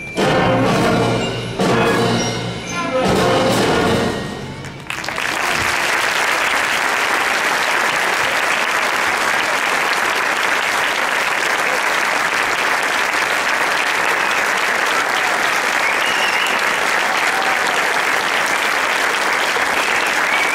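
Fifth-grade school concert band playing the final accented chords of a piece, three loud hits about a second and a half apart, ending about five seconds in. The audience then applauds steadily.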